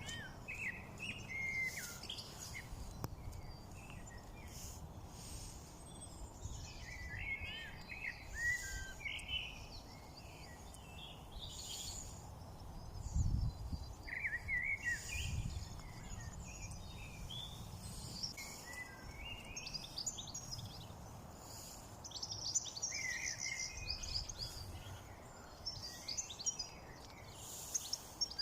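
Songbirds chirping and twittering in scattered bursts of quick high notes, over a steady low rumble. Two louder low bumps come near the middle.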